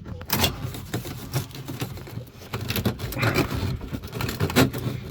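Phillips screwdriver driving small screws into a replacement pressure relief valve: irregular clicks and scrapes of metal on metal, over a low steady hum.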